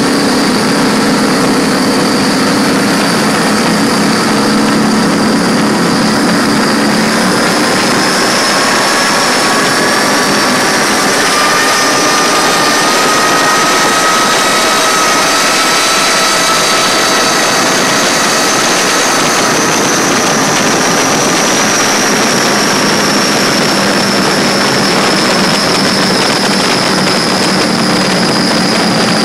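A 42-foot Fountain powerboat's 1050 hp Cobra engines running at high speed under a steady rush of wind and spray. The engine pitch climbs slowly over the first half and eases back a little near the end.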